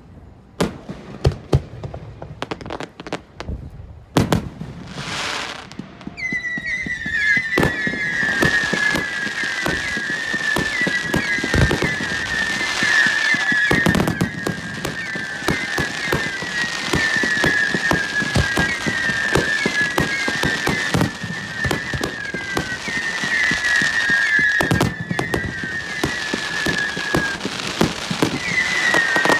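Fireworks display: separate sharp bangs of bursting shells, then from about six seconds in a dense, continuous run of crackling reports with a high, wavering whistle sounding over and over.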